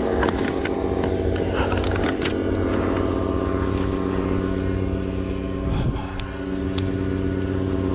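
Ros 125 single-cylinder two-stroke paramotor engine idling steadily, with a few light clicks over it.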